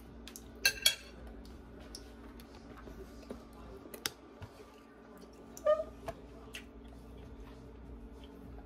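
Cutlery and a ceramic plate clinking: two sharp clinks close together near the start, then single clinks about four and six seconds in, over a steady low hum.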